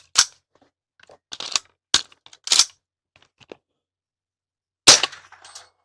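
.22LR AR-15 rifle firing single shots at an irregular pace, each a short sharp crack, with the loudest at the start and near the end.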